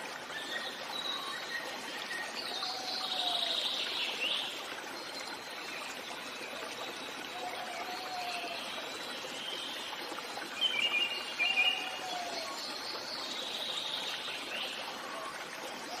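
Birdsong over a steadily trickling stream: a short low call comes back every few seconds among higher chirps, with a louder, quick trill about eleven seconds in.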